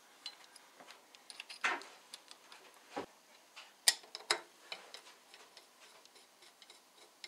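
Screws being put in and turned with a screwdriver in the motor mount of a milling-machine head: scattered small metal clicks and light scrapes, the sharpest about four seconds in.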